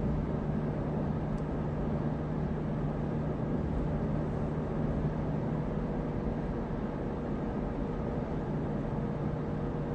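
Steady road and engine noise inside a moving car's cabin, with a constant low hum under an even rush.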